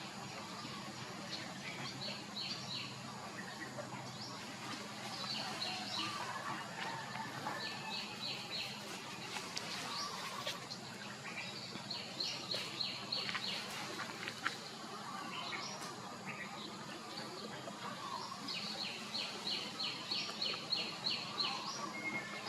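Outdoor ambience with birds calling in repeated bouts of quick, evenly spaced high notes, each bout lasting about a second, over a steady background hiss, with a few scattered clicks.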